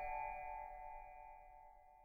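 The last bell-like chime of a Palm Pre ringtone ringing out, a single tone of several pitches fading steadily toward silence.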